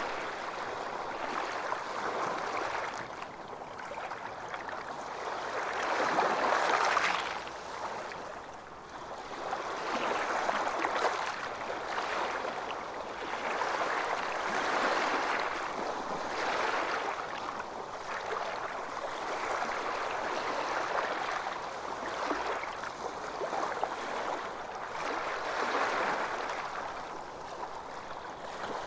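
Calm small waves lapping and sloshing around a yacht, a soft wash of water that swells and fades every couple of seconds.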